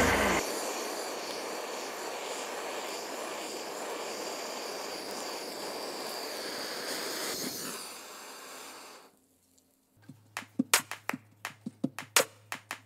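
Kitchen butane blowtorch hissing steadily as it caramelises the sugar on a crème brûlée, fading out about eight seconds in. After a short silence, a quick run of sharp clicks near the end.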